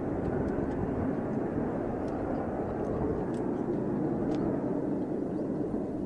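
Mitsubishi F-2 fighter's single turbofan jet engine, a steady distant roar after takeoff.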